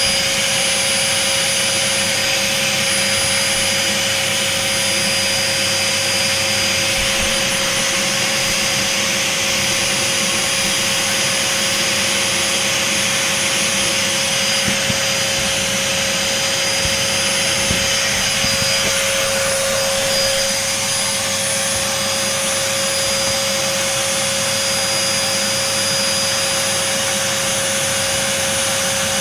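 Vacuum cleaner running steadily with a constant whine as it sucks up spilled flour; the whine wavers briefly about two-thirds of the way through.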